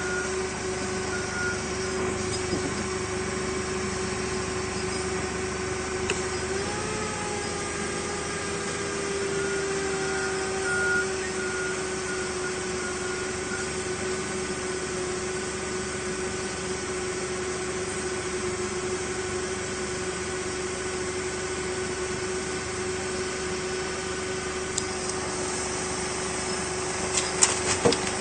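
Forklift running with a steady whine over a machinery hum. The pitch rises briefly about six or seven seconds in, and a few knocks and clatters come near the end.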